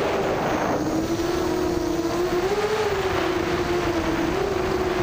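A Bolt250 FPV mini quadcopter's brushless motors and propellers whining in flight: a steady buzz whose pitch dips and rises slightly as the throttle changes. It runs over a hiss of wind.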